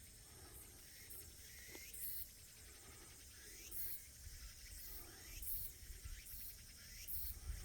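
Insects trilling steadily at a high pitch, with short high calls that sweep downward repeating every second or two. Faint wind rumble on the microphone.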